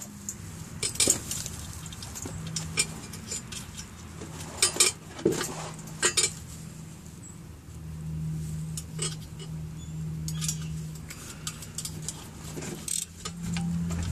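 Scattered light metallic clinks and taps as small fasteners are threaded by hand onto a sheet-metal oil pan baffle, over a steady low hum.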